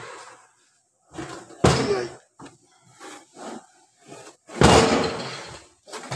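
Heavy aluminium CVT transmission case being turned over and set down on a metal workbench: two loud thuds with a short ring, about 1.5 seconds in and, loudest, about 4.5 seconds in, with lighter knocks and scrapes between them.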